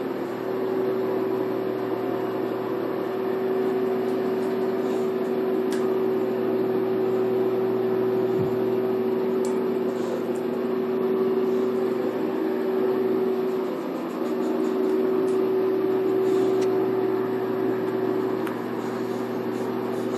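Steady electric motor hum, even and unchanging, with a short low thump about eight seconds in.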